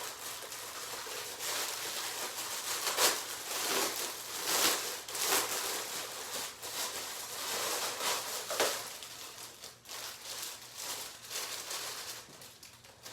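Plastic packaging crinkling and rustling in the hands as a parcel is torn open and the item pulled out, in uneven surges with sharper crackles now and then.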